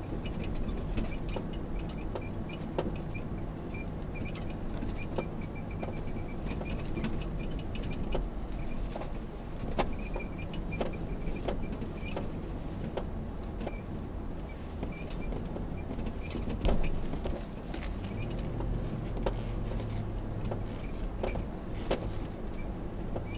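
Lexus GX460 driving over rutted beach sand, heard from inside the cabin: a steady low engine and road rumble with frequent small clicks and rattles. A steadier low hum joins about two-thirds of the way through.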